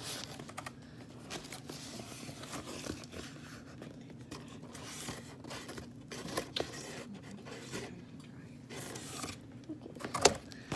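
Cardboard rustling and scraping as a corrugated box panel is handled and pressed down over newspaper, with many small irregular clicks and two sharper knocks near the end.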